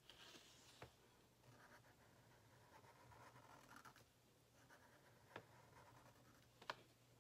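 Sharpie marker drawing on paper: faint felt-tip strokes squeak and scratch across the page in short runs. There are three light clicks, the last near the end the loudest.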